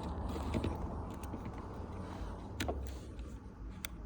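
A few faint, sharp clicks and taps of small metal phone parts and tools being handled, over a low steady rumble.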